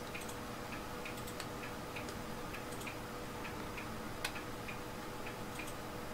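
Faint regular ticking, about three ticks a second, over a low steady hum, with one sharper click about four seconds in.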